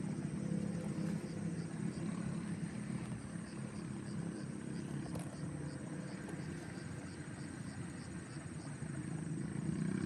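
Outdoor ambience beside a pond: a steady low rumble, with faint, evenly repeating high chirps.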